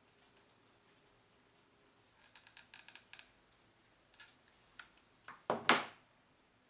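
Hands working a hot glue gun on a fabric-covered lampshade: a run of short crisp clicks and rustles, a few single clicks, then a louder brief scraping rustle near the end as the glue gun is put back down on the wooden bench.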